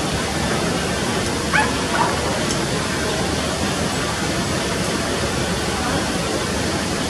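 A cattle dog gives a couple of short, high yelps about a second and a half in, over a steady rushing background noise.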